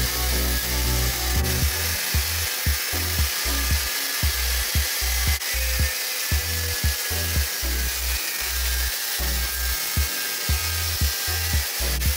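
Angle grinder with a cutting disc running and cutting through the metal casing of an electric-car battery module, a steady hissing grind. Background music with a steady beat plays along with it.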